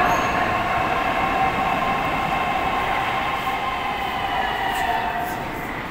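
St Petersburg metro train of the 81-722 'Yubileyny' type pulling into the station, a rumble of wheels on rail with a steady whine from its traction drive. The whine and rumble fade near the end as the train slows to a stop.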